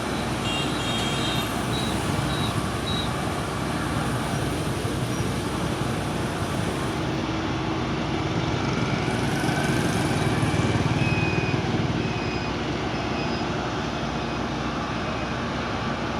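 Street traffic noise with vehicle engines running. The rumble swells as a vehicle passes, loudest about ten seconds in, then fades back.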